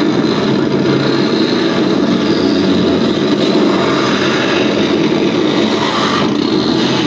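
Live electronic noise music played from a laptop and effects gear: a loud, dense, distorted drone that holds steady, with its upper tones shifting a little near the end.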